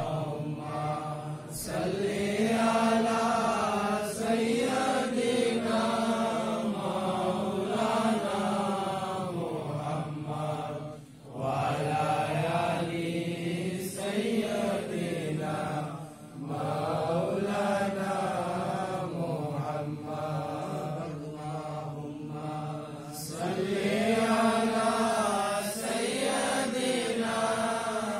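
A group of men chanting a devotional Milad recitation together in a slow, melodic rise and fall. The chanting breaks off briefly twice in the middle.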